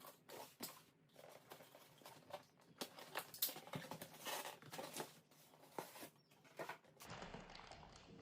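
Faint rustling, scraping and light knocks of packaging and parts being handled during unboxing. About seven seconds in, a steady low hiss takes over.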